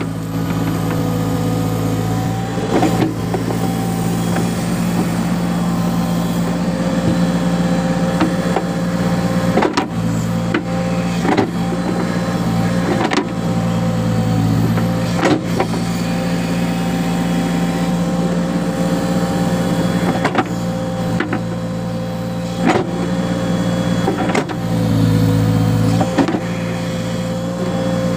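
Backhoe loader's diesel engine running steadily under load, with the whine of its hydraulics rising and falling as the backhoe digs. Sharp clunks come from the arm and bucket every few seconds.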